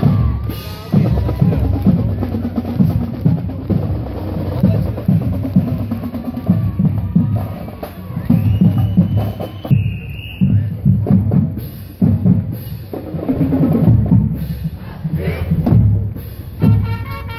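Marching band drumline playing a street cadence between tunes: snare and bass drums beating a steady marching rhythm.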